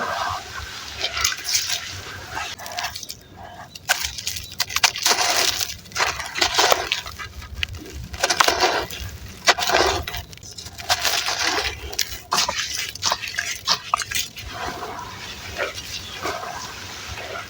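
Wet, gritty red sand and charcoal crumbling and squishing in foamy water, in irregular crunchy bursts with small crackles, briefly easing off twice.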